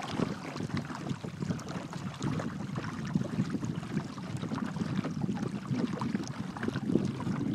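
Water rushing and splashing along the hull of a sailing kayak under way, with wind buffeting the microphone in uneven gusts.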